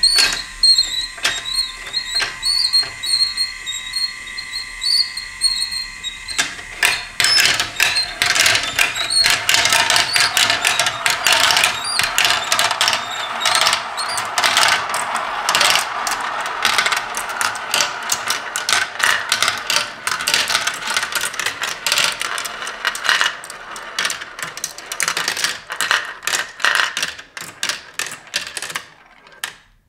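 Marbles rolling and clattering through a plastic marble-run track: scattered clicks at first, then from about six seconds in a dense, continuous rattle as many marbles run at once, some circling a plastic funnel bowl. The rattle thins out near the end.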